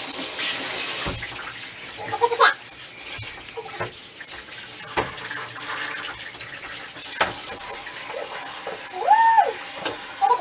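Water running from a handheld shower sprayer in a bathtub as a dog is rinsed, a steady hiss that is louder in the first second and quieter after it. A few sharp knocks sound against the tub, and a short pitched vocal sound rises and falls near the end.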